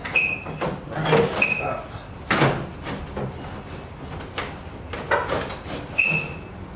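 Clunks, knocks and scraping as an E30's radiator is worked loose and lifted out of the engine bay, with a few short high squeaks among them.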